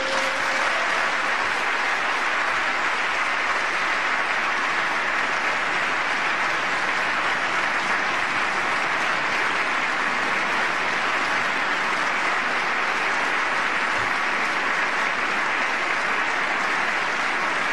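Long, steady applause from the members of Congress at a joint session, in response to a line of a speech.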